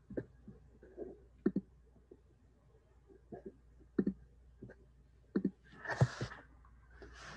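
Scattered clicks and knocks, about seven of them at uneven intervals, followed by a short burst of breathy noise about six seconds in and another just before the end. A low steady hum lies underneath.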